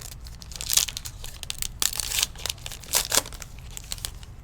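Foil trading-card pack wrapper crinkling as it is torn open, in a few short bursts.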